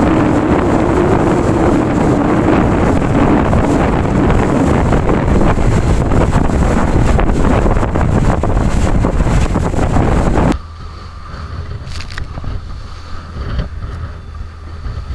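Wind buffeting the microphone over a small fishing boat's engine and its hull running through the sea at speed, loud and even. About ten seconds in it cuts off abruptly to a quieter mix of wind, waves and a low steady engine hum as the boat pitches in rough, storm-driven water.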